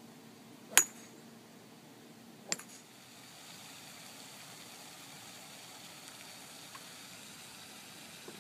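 Two sharp clicks of a golf club striking a ball, about two seconds apart, the first louder, each with a brief high ring.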